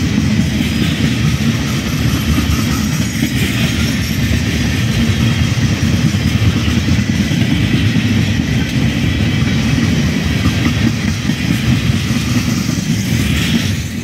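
Tank cars of a long freight train rolling past close by: a steady rumble of steel wheels on the rails.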